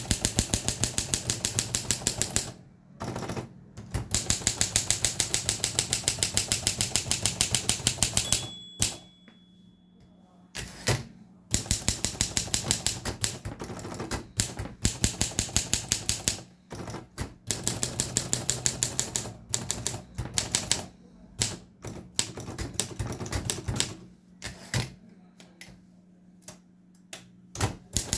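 1961 Olympia SM3 manual typewriter being typed on quickly: rapid runs of key strikes, about ten a second, in bursts broken by short pauses. The carriage bell rings once, about a third of the way through.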